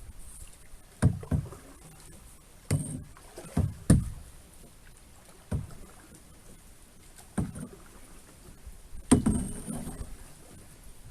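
A small boat being rowed: about eight irregular hollow knocks of the oars against the boat every one to two seconds. The loudest knocks come about four and nine seconds in.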